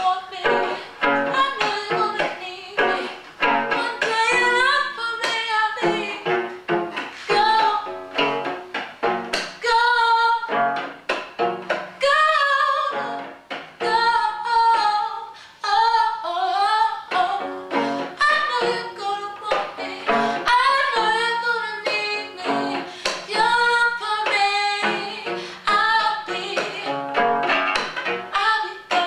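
Woman singing over a cello played with rapid plucked notes, some bowed, in a steady rhythm.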